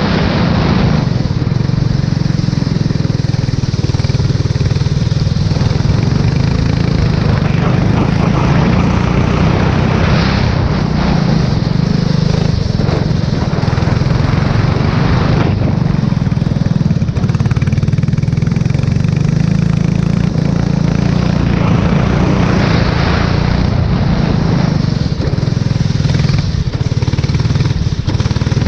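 Formula 4 race car engine running steadily at speed on a wet track, heard onboard, with a hiss of wind and tyre spray that swells and fades several times.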